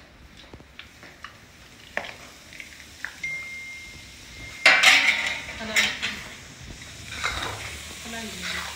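Steel plate and spatula clinking against a steel kadhai (Indian wok) as flour is tipped in and stirred. About five seconds in comes a louder stretch of metal scraping, with the flour sizzling in the hot pan.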